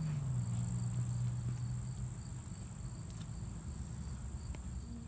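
Insects trilling steadily at a high pitch, over a louder low steady hum that dips slightly in pitch about half a second in and eases off toward the end.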